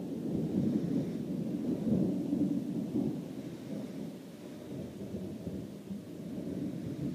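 Thunder rumbling: a low rolling rumble that swells over the first few seconds, then slowly dies down.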